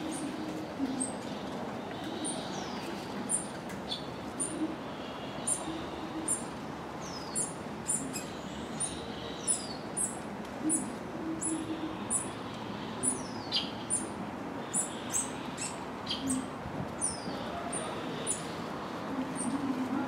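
High, thin bird chirps repeated about once or twice a second, some sliding down in pitch.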